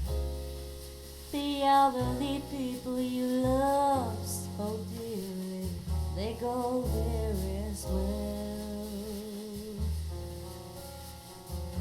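A recorded song playing through a 2A3 single-ended valve amplifier and two-way speakers: a singing voice with vibrato comes in about a second in over steady bass and instrumental accompaniment.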